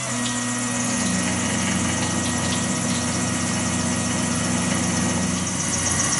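CNC milling machine spindle running with an end mill cutting a Glock 26 Gen 5 pistol slide under flood coolant: a steady machine hum with held tones, joined by a lower steady tone just after the start.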